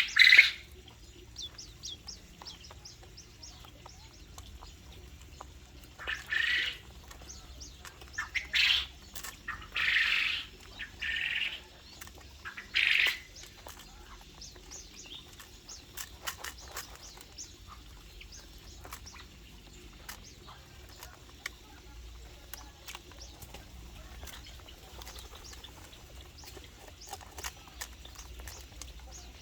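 Mixed cage birds in an aviary calling: about six loud, harsh half-second calls in the first half, with many small high chirps throughout.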